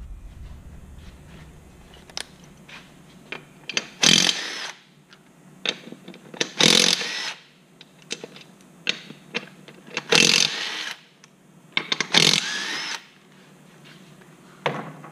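Yellow cordless power tool spinning the lug nuts off an ATV's front wheel: four short runs of under a second each, with a shorter fifth near the end and small clicks of handling between them.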